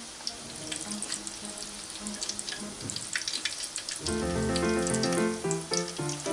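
Battered cod sizzling and crackling in hot oil in an electric deep fryer. About four seconds in, louder background music starts.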